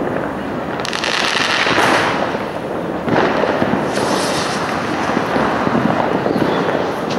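Many fireworks going off at once: sky rockets launching and bursting among a continuous din of firecracker bangs and crackle. There are fresh loud surges about one and three seconds in.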